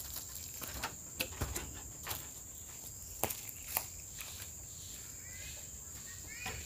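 Insects chirring in a steady high drone, with scattered sharp clicks and knocks over the first few seconds and a couple of short rising chirps near the end.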